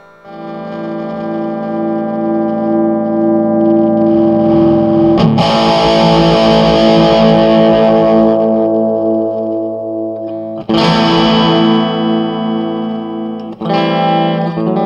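PRS electric guitar played through a Marshall Lead 12 solid-state mini stack: chords are strummed and left to ring, with new chords about five, ten and a half and thirteen and a half seconds in. The guitar's volume is rolled back, so the amp's overdrive cleans up to a lighter, less distorted tone.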